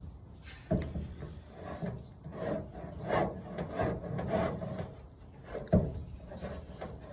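Plastic hose-end sprayer being handled and screwed together. There are two sharp knocks, about a second in and near the end, with a run of rubbing, twisting strokes between them.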